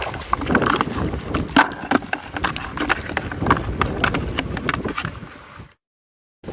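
Wind buffeting the microphone, with a quick run of sharp knocks and rattles from handling in the wet paddy. The sound cuts off to dead silence near the end.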